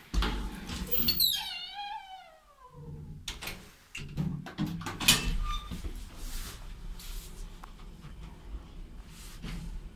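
ZREMB passenger lift: a wavering squeal that falls in pitch over about a second and a half near the start, then a few sharp clicks and clunks as a floor button is pressed and the cab's door mechanism works, then a steady low hum as the lift runs.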